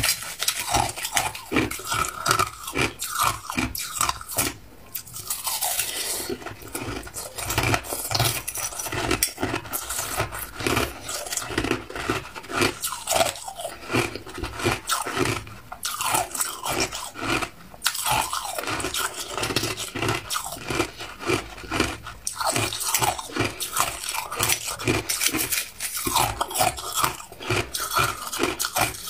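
Crushed ice being chewed: dense, irregular crunching that keeps going.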